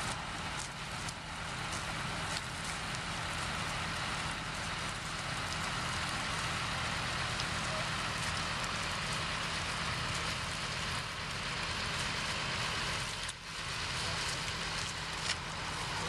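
Steady outdoor hiss over a low, even engine hum from tractors working the field, with a brief dip about thirteen seconds in.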